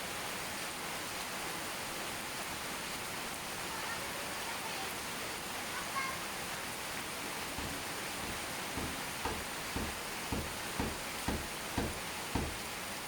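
Steady rain falling. Near the end, a run of about eight low thumps comes roughly twice a second.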